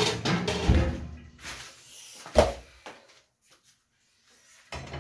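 Kitchen clatter: a sharp knock followed by about a second and a half of rattling handling noise, then a second sharp knock about two and a half seconds in.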